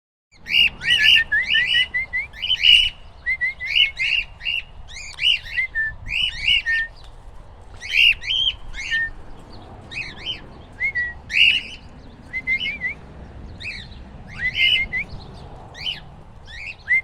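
Cockatiels in an aviary calling: a continuous run of short, shrill chirps and whistled squawks, several per second, rising and falling in pitch.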